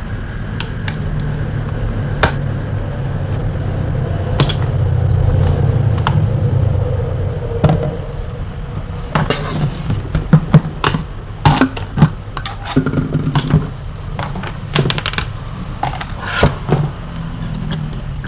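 Sharp clicks and knocks, most of them in the second half, of a table fan being handled and taken apart, over a steady low rumble.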